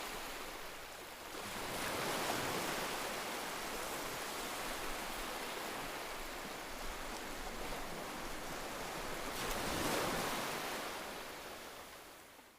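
Ocean surf: a steady wash of waves, swelling louder as waves break about two seconds in and again about ten seconds in, then fading out near the end.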